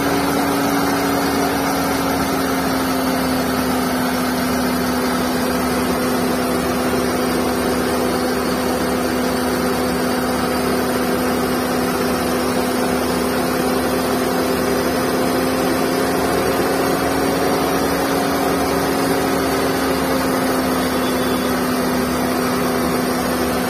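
Skoda Fabia 1.2 engine running steadily, with a constant whining hum from the accessory drive: the noise of the V-belt and its worn tensioner pulley bearing.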